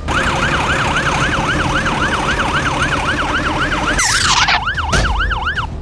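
Emergency-vehicle siren in a fast yelp, about four rising-and-falling wails a second, with a brief falling whoosh about four seconds in.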